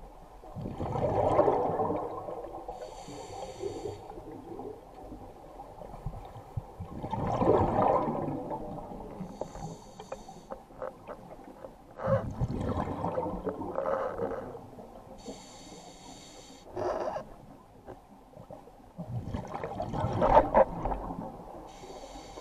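Scuba diver breathing through a regulator underwater: a loud gurgling rush of exhaled bubbles about every six seconds, four times, with a short hissing inhale through the regulator between each.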